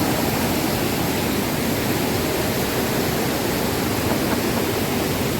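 Steady rush of a river's flowing water, an even full noise with no breaks.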